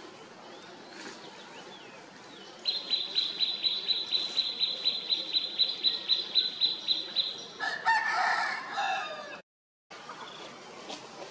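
A rooster crowing once, about a second and a half, near the end, cutting off suddenly. Before it, a rapid, even run of high chirps at one pitch, about five a second, goes on for some five seconds.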